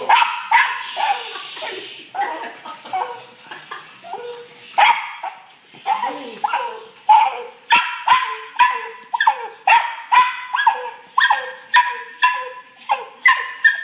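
A dog barking and whining excitedly in short, high yips, some falling in pitch. From about halfway the barks come in a quick, regular run of two or three a second.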